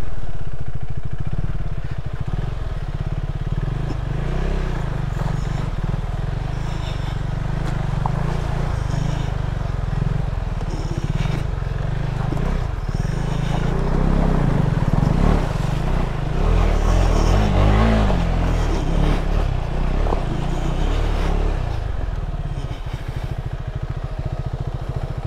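Motorcycle being ridden on the road: its engine running under way, under a heavy, continuous wind rumble on the camera microphone.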